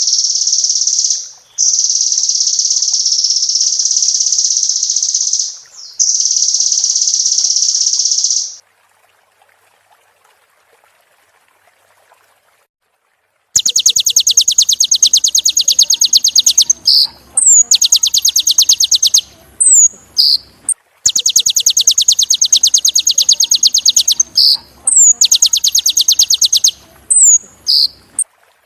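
Kolibri ninja (a sunbird) singing: long, high, rapid buzzing trills in bursts of a few seconds. After a pause of about five seconds come more fast trills, broken by short high notes that slide downward.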